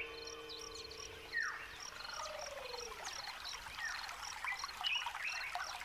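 Many wild birds calling over one another, with a short high chirp repeated about twice a second and a long falling note about a second and a half in.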